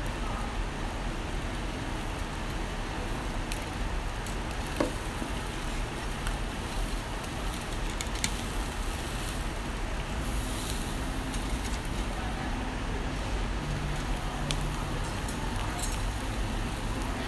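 Mackerel fillet sizzling on a wire grill over a charcoal fire, a steady hiss with scattered small crackles. A sharp metallic click about eight seconds in as tongs turn the fish on the grate.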